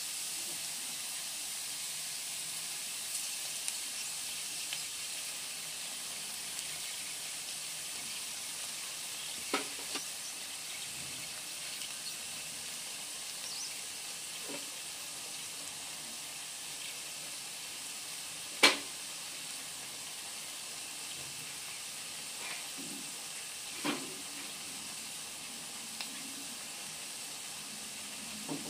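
Diced onion and bell peppers sizzling steadily in a nonstick wok, a hiss that stays even throughout. A few sharp clicks and knocks break in, the loudest a little past halfway.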